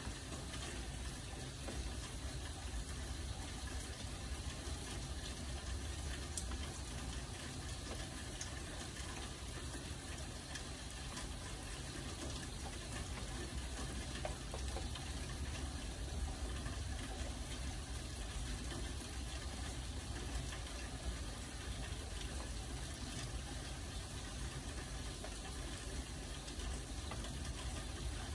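Steady rain, an even hiss with a few faint ticks scattered through it.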